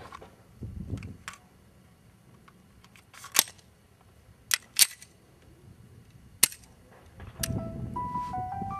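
Sharp metallic clicks of a Beretta 92FS pistol being loaded: a magazine seated, then a quick pair of clacks from the slide being worked, and one more click a second and a half later. Near the end a low rumble rises, with a few brief steady tones.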